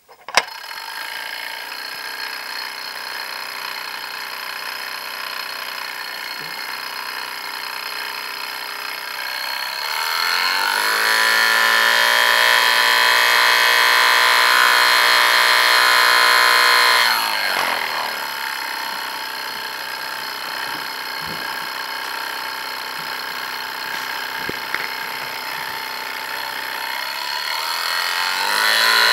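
Small kit-built DC electric motor started with a flick of the rotor and running steadily. Its pitch rises about ten seconds in, drops back about seven seconds later, and climbs again near the end.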